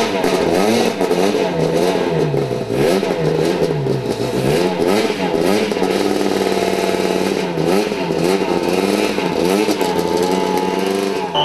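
Rally car engine revving hard, its pitch rising and falling again and again, then held high and steady for a second or two near the middle, with sharp crackles throughout.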